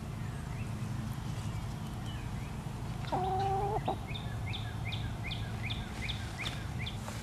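A New Hampshire Red hen gives one drawn-out, level call of just under a second about three seconds in. Right after it a small bird repeats a quick falling chirp about three times a second, over a steady low background hum.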